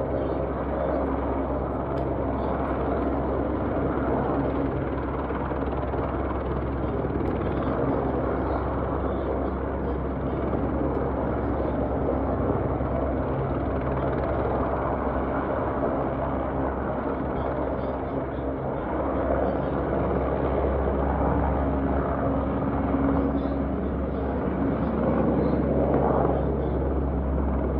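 Helicopter's turbine engine and rotor running steadily on the pad, then growing louder in the last several seconds as it lifts off.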